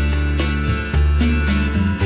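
Instrumental background music with sustained bass notes and a steady beat.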